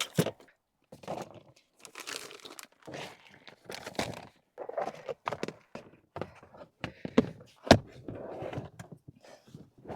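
Rustling and crinkling of gear being handled and packed away, with scattered knocks and one sharp knock about three-quarters of the way through.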